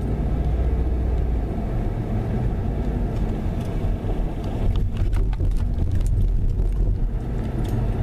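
Steady low road and engine rumble of a moving car, heard from inside the cabin, with a few light clicks about five seconds in.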